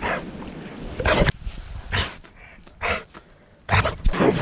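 Pit bull making short play noises, about five in a row, with the loudest near the end.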